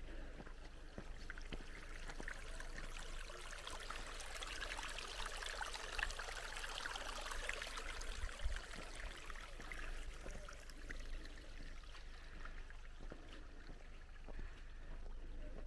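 Running water of a stream, a fizzing, burbling rush that grows louder to a peak about six or seven seconds in, then fades.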